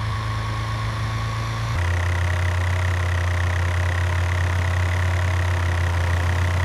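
Steady engine drone of a cartoon heavy construction machine (excavator or tractor) running, switching to a slightly different steady engine tone about two seconds in.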